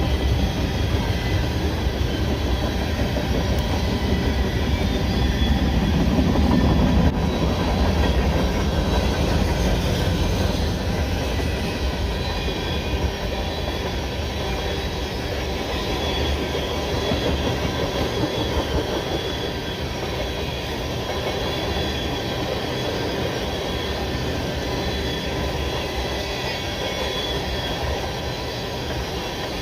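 CN freight train cars rolling past on the rails, a steady rumble of wheels on track with faint high wheel squeal over it, easing off a little in the second half.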